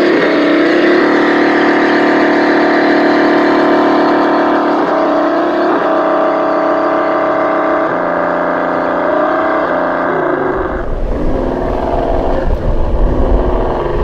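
Electric motor and gearbox of a Tamiya Toyota Tundra High Lift RC truck whining steadily as it crawls, the pitch shifting a few times with the throttle. After about ten seconds the whine fades and a low rumble takes over.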